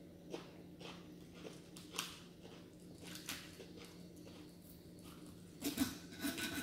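Quiet mealtime sounds: scattered soft clicks of chewing and of a knife and fork on a plate, a little louder near the end as food is cut, over a low steady hum.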